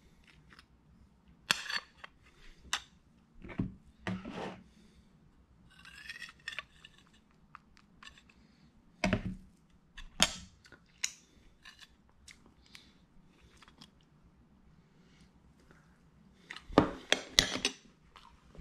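Metal cutlery clicking and scraping against a china plate as cake is cut and scooped, in scattered sharp clinks; the loudest cluster of clinks comes near the end, as the spoon is laid down on the plate.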